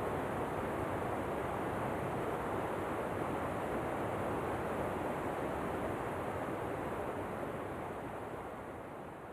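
Steady rushing of a waterfall, an even white-noise roar that begins to fade out over the last two seconds.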